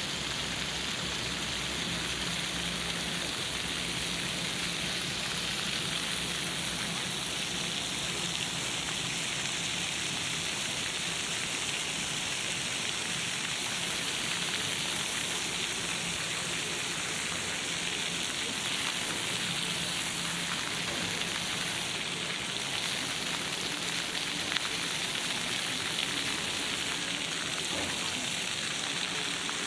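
Jets of a plaza fountain splashing steadily into their shallow pool.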